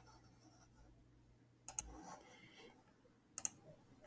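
A few isolated clicks at a computer keyboard and mouse: one a little under two seconds in, another near three and a half seconds, and one at the very end, with faint room tone between.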